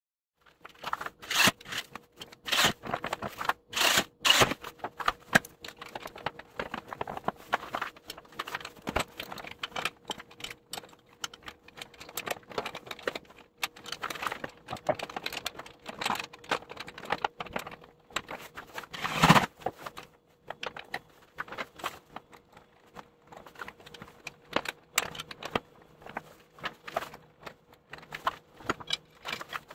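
Metal hardware being handled and fitted under an ATV: irregular clinks, taps and scrapes of bolts and a steel plow-mount bracket against the frame and skid plate, with one louder knock about two-thirds of the way through. A faint steady hum sits underneath.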